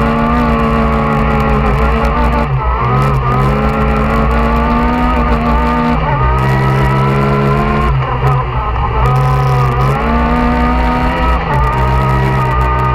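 Yamaha YXZ 1000 UTV's three-cylinder engine running hard under the driver's throttle, its pitch holding, then dipping and climbing again about four times as the engine speed drops and rises.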